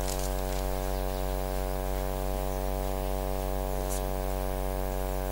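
Steady electrical mains hum and buzz: a low drone with a ladder of higher tones stacked over it, unchanging throughout, with one faint tick about four seconds in.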